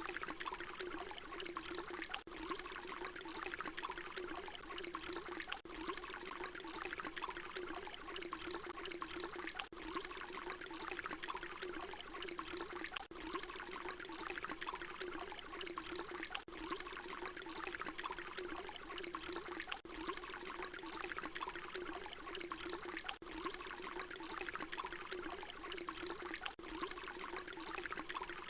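Water pouring in a steady, continuous stream, with a faint momentary break about every three and a half seconds where the looped recording repeats.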